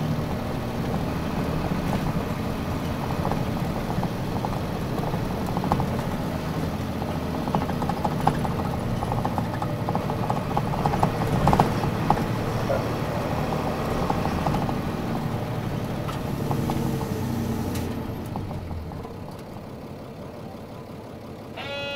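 Nissan Diesel Space Runner bus's diesel engine running under way with the body rattling, heard from on board. From about 18 s in the engine note falls away as the bus eases off. A short pitched tone sounds right at the end.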